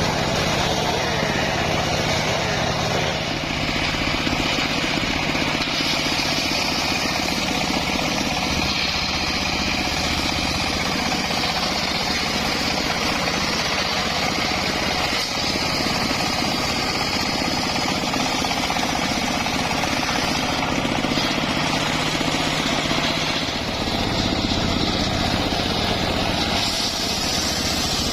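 Homemade circular saw running steadily while cutting wood. A harsher, higher sound comes in about six seconds in and eases off near the end.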